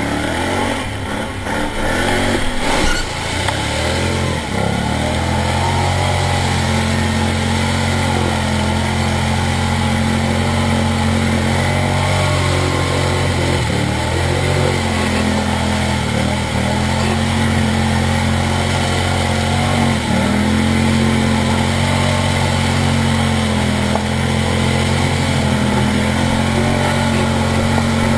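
Can-Am ATV engine running hard at high, nearly constant revs under load while driving through mud. The revs dip briefly about four times as the throttle eases and then pick back up.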